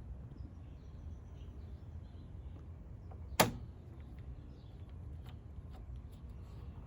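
A single sharp click about halfway through, over a steady low rumble, followed by a few faint ticks.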